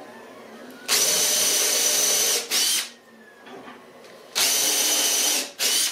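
Power drill spinning a 5/8-inch Forstner bit, counterboring shallow rivet-head recesses in UHMW plastic sheet: two steady runs of a second or so each, each followed by a short extra blip of the trigger.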